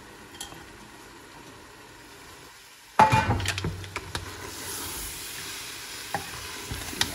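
Chopped carrots, potatoes and peas land in hot masala in a pressure cooker. After about three seconds of faint hiss there is a sudden loud sizzle, which settles into steady frying. A few knocks come from the steel bowl and the wooden spatula as the vegetables are stirred.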